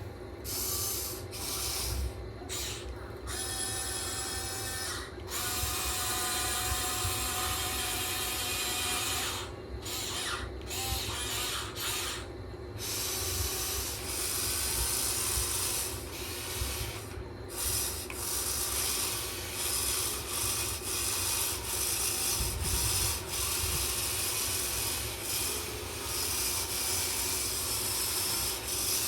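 Huina 1580 all-metal RC excavator working: its electric motors and metal gearboxes whine in stretches that start and stop over several seconds, over a continuous rough scraping, rasping noise.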